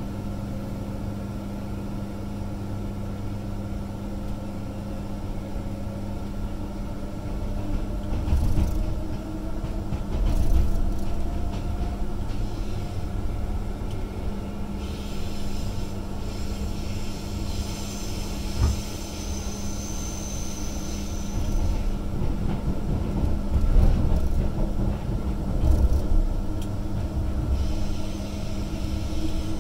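Inside a Queensland Rail electric multiple-unit passenger car: a steady electrical hum, with a motor whine rising in pitch as the train gathers speed, then the wheels rumbling and thudding over the track. For several seconds around the middle a high hiss with a thin whistle joins in.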